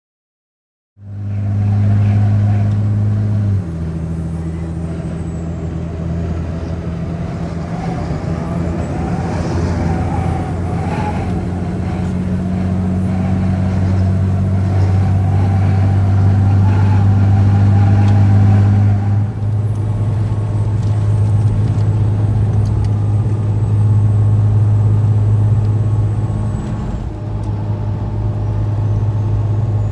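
Ram 5500 diesel truck heard from inside the cab while cruising on the highway: a steady engine drone mixed with road noise. The low hum drops in pitch a few seconds in and shifts again past the middle.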